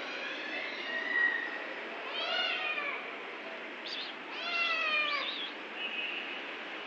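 Kitten meowing: a fainter call in the first second, then two long meows, each rising and then falling in pitch.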